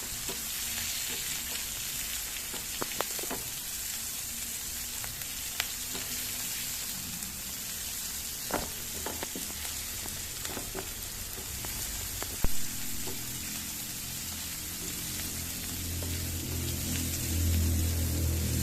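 Wet shrimp and lime leaves sizzling in hot oil with fried spice paste, a steady hiss broken by occasional clicks and knocks of a spatula stirring in the pan. A low hum grows near the end.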